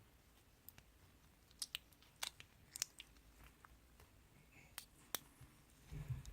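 Slime being handled by hand, giving scattered small clicks and crackles, faint overall, with a soft low thump near the end.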